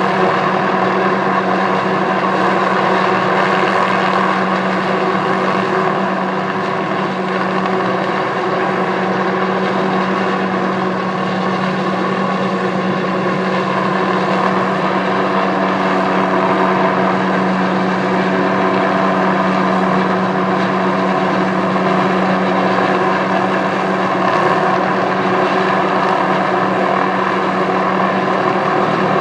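Helicopter running steadily: a constant engine and rotor drone with a strong low hum that holds the same pitch throughout.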